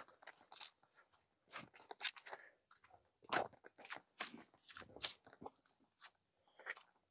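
Spade cutting into grassy turf and soil, a run of faint, irregular crunches and tearing scrapes as a plug of turf is levered up.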